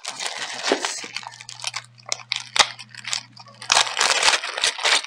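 Plastic zip-top bag crinkling and rustling as it is opened and handled, with several sharp clicks. The crinkling gets denser and louder in the last second or so as a necklace is pulled out of the bag.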